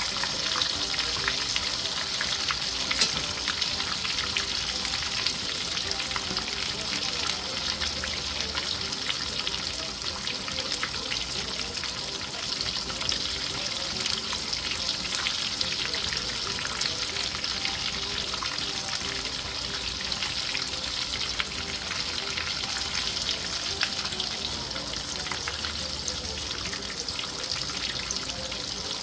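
Egg rolls frying in hot oil in a cast-iron skillet: a steady sizzle, full of small crackles and pops.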